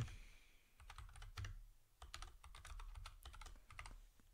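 Typing on a computer keyboard: irregular runs of quiet keystroke clicks as code is entered.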